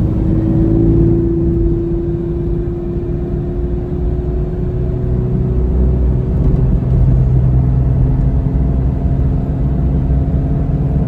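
Jeep Cherokee XJ's engine and road noise heard from inside the cabin while it accelerates, a steady low drone. A clear hum in the first half gives way to a lower engine note about seven seconds in.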